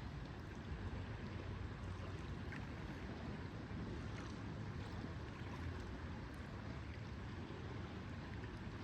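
Lakeside ambience: a steady wash of water at the shore over a low wind rumble.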